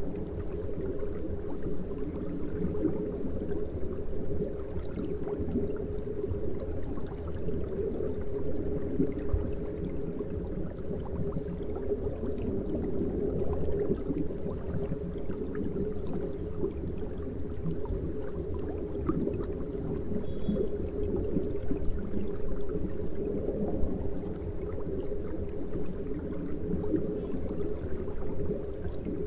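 Aquarium water bubbling steadily, low and muffled.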